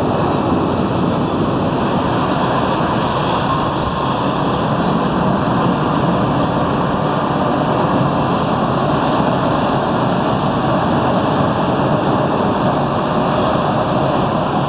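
Jet airliner engines heard from outside, a steady loud noise with no clear rise or fall in pitch.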